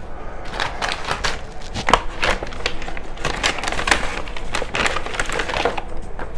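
White paper carrier bag crinkling and rustling as hands rummage in it and draw out a boxed vinyl figure. Irregular crackles start about half a second in and stop shortly before the end.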